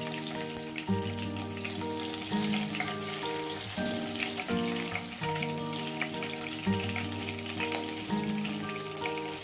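Green chillies and mustard seeds sizzling and crackling in hot oil in a kadai, a fine spattering crackle like light rain. Soft background music with held chords plays under it.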